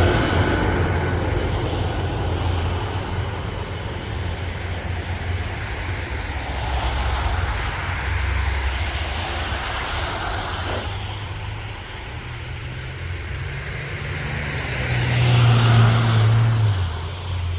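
Road traffic going past, engine rumble with swells of tyre and road noise as vehicles pass. A heavier engine climbs in pitch in steps and is loudest near the end, and there is one sharp click about two-thirds of the way through.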